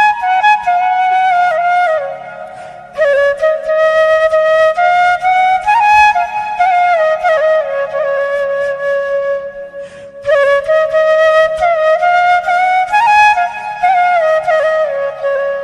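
Background music: a slow melody on a flute-like wind instrument, sliding between notes in phrases with short breaths between them.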